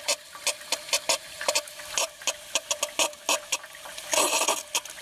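Water spraying from a livestock float valve into a partly filled plastic bucket, with irregular sharp splashes about three or four times a second. A short louder rush of water comes a little after four seconds in. The valve is still open while the bucket fills.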